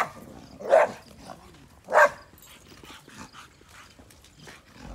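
Gull Terr dog barking: three short, loud barks in the first two seconds, then quiet.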